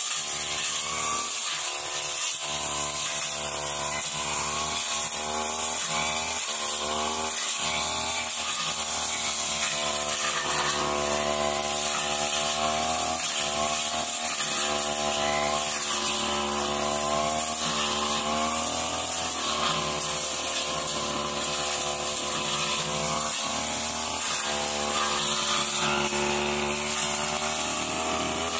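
Backpack brush cutter engine running at high revs as its steel blade cuts through grass and woody undergrowth, the engine pitch rising and dipping as the blade bites.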